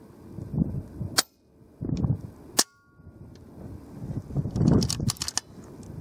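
Gusting wind rumbling on the microphone. Sharp cracks come about a second in and again at about two and a half seconds, each followed by a brief dropout, and a quick cluster of clicks comes near the five-second mark.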